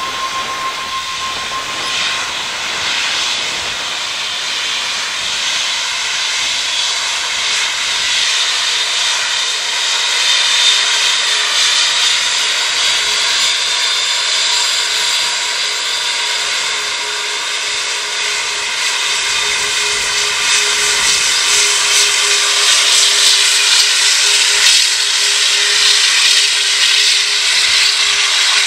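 Airbus A380's four turbofan engines at taxi thrust: a steady hissing whine with several held tones, growing gradually louder as the aircraft rolls past.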